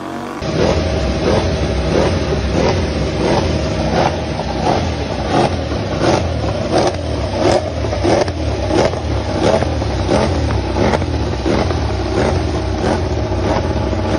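Ducati Desmosedici MotoGP bike's V4 engine being warmed up on its stands, running at a fast idle with the throttle blipped about three times every two seconds.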